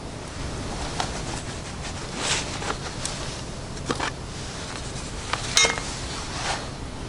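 A few scattered clicks, knocks and rustles over a steady low background hum, the sharpest click about five and a half seconds in.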